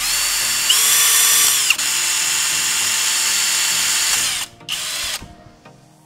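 Cordless drill running at speed as its bit bores through a plastic bottle cap, the motor's whine briefly louder and higher about a second in. It stops a little past the middle, followed by a short second burst.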